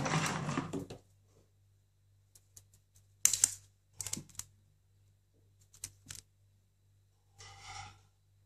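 Irregular sharp clicks and taps, a handful of them spaced over several seconds, from a ferret's claws and teeth on the plastic body and hose of a garment steamer; a short scratchy rustle near the end.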